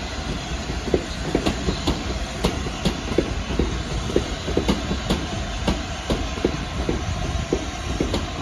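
Class 350 Desiro electric multiple unit running slowly through pointwork, its wheels clicking over rail joints and crossings about three times a second over a low rumble.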